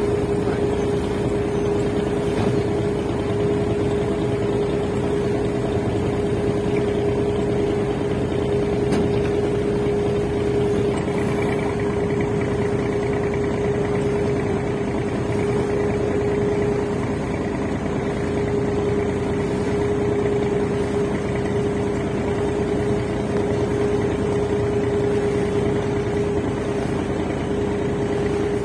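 Engine of a river launch running steadily under way: a constant drone with a steady hum that does not change in pitch or level.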